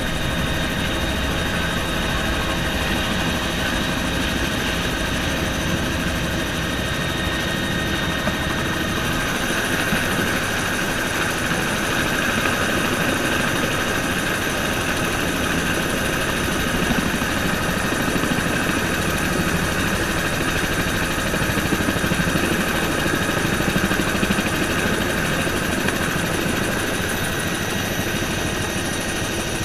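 Bell helicopter's engine and rotor running steadily, heard from inside the cabin as it hover-taxis low over the tarmac: a constant mechanical noise with a steady high whine on top.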